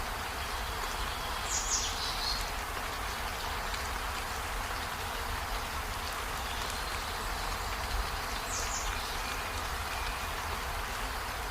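Steady rain falling on trees, an even hiss, with two short high chirps about two and nine seconds in.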